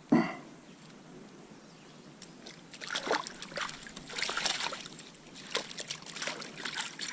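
A brief sharp sound right at the start, then irregular splashing of water from about two and a half seconds in: a hooked trout thrashing at the surface as it is brought in.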